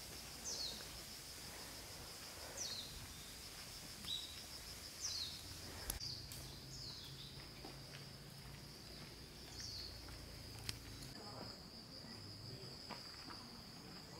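Faint natural ambience: a steady high-pitched insect drone, with a bird giving short calls that slide downward every second or two. The bird calls stop about ten seconds in.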